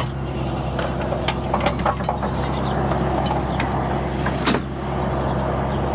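Engine of a compact loader running steadily close by, with a scattering of sharp knocks and clatters from the machine at work.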